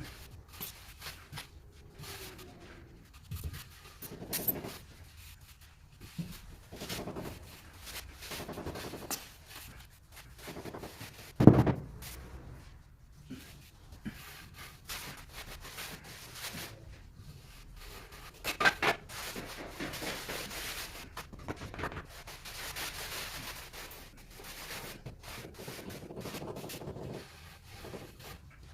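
Hand trowel scraping and spreading a cement-mortar floor bed in irregular rubbing strokes. A sharp knock about eleven seconds in is the loudest sound, and a quick cluster of knocks follows near nineteen seconds.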